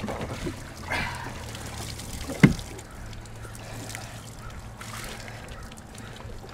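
Water trickling and dripping off a just-used slalom water ski and the skier onto the boat, over the steady low hum of the idling boat engine. A single sharp knock about two and a half seconds in is the loudest sound.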